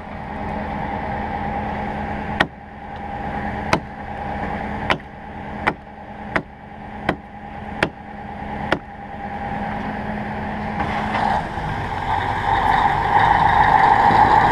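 Heavy truck diesel engine running steadily. Eight sharp knocks come about a second apart in the first half. Near the end the engine grows louder, as if revving up.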